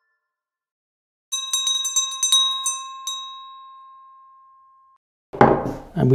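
A small bell sound effect from a subscribe-button animation: a quick run of bright bell strikes for about two seconds, then ringing away for about two more. Near the end comes a short, loud, noisy rustle.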